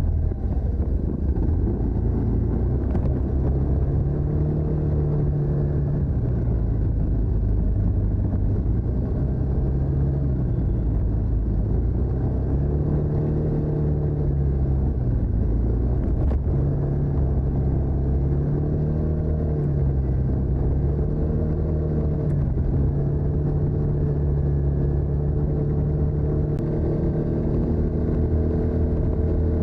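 TVS NTorq 125 scooter's single-cylinder engine through its stock exhaust, running under way, its pitch rising and falling several times as the throttle is opened and closed.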